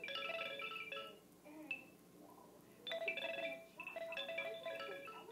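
Baby rattle toy sounding clusters of short, bell-like chiming notes in two spells: one through about the first second, and another from about three seconds in.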